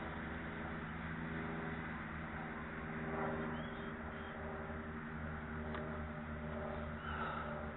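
A steady mechanical hum, like a running engine, with a couple of brief high chirps about three and a half seconds in and near the end.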